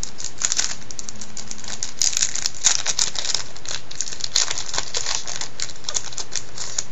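Shiny wrapper of a 2002 Topps Total baseball card pack being torn open and crumpled by hand: quick, irregular crinkling and crackling, thickest about two to three and a half seconds in.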